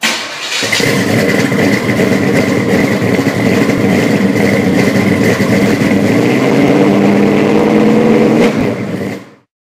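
Loud car engine running, with a steady low rumble throughout, cutting off abruptly about a second before the end.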